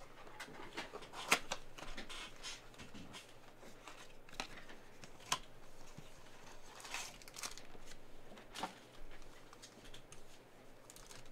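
A cardboard blaster box of trading cards being torn open and handled, with scattered rustles and a few sharp clicks, then foil card packs crinkling as they are taken out.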